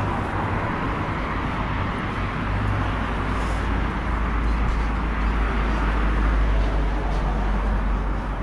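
Road traffic going by on a busy street: a steady low engine rumble with the hiss of tyres, swelling a little past halfway and easing near the end.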